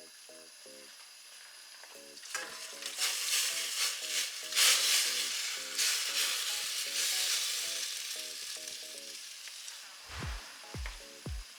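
Tempura frying in oil: a loud sizzle starts about two seconds in, peaks near the middle, then gradually dies down. Light background music with plucked notes plays throughout, and low drum beats come in near the end.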